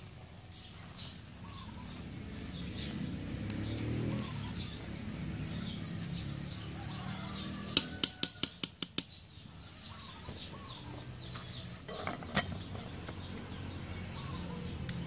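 A metal spoon stirs steaming cooked purple glutinous rice in a large aluminium pot, then knocks about seven times in quick succession against the pot around eight seconds in. A couple more metal knocks follow near twelve seconds as the aluminium lid goes on. Birds chirp in the background.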